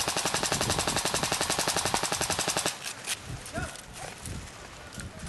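Airsoft rifle firing a long, rapid full-auto burst that stops about two and a half seconds in, followed by a few scattered single shots.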